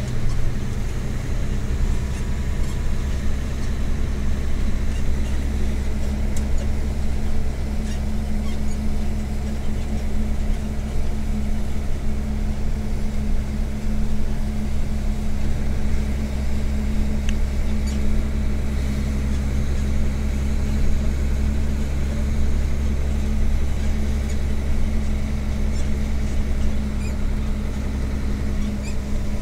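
Mercedes-Benz Actros MP1 2643 truck's diesel engine heard from inside the cab, running at a steady cruise. It makes an even low drone that holds one pitch throughout, with road and cab noise.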